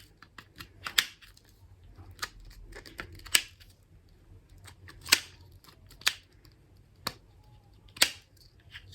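Sharp plastic clicks, about one every second or two with softer ticks between, from a fidget puzzle ball as its small balls are moved around into different spots to mix them up.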